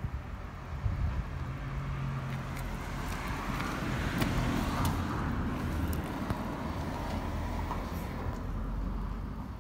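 A passing car on a road, its tyre and engine noise swelling to a peak about halfway through and then fading away.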